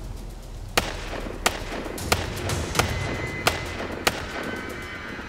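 Glock 45 9mm pistol firing six shots at a steady pace, about two-thirds of a second apart, over background music.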